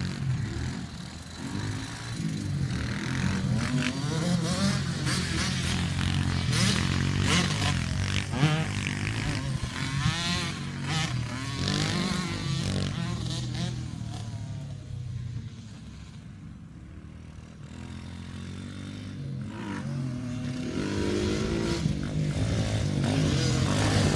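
Small dirt bike engines revving up and down as several pit bikes ride around a dirt track, the pitch rising and falling as they accelerate and pass. The engines fade to a quieter stretch about two-thirds of the way through, then grow louder again as a bike comes near.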